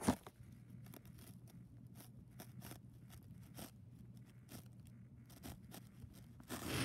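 Handwriting on an iPad's glass touchscreen: a string of faint, irregular taps and scrapes as letters are written, over a steady low hum. A sharper click comes right at the start.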